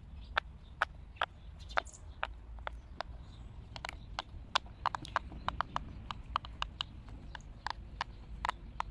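Silicone pop-it fidget toy bubbles being pressed in one after another: a long run of sharp little pops, uneven in spacing and coming faster in the second half.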